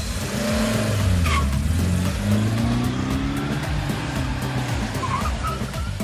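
Cartoon car sound effect: an engine whose pitch rises and falls as it revs, with brief tire squeals about a second in and again near the end.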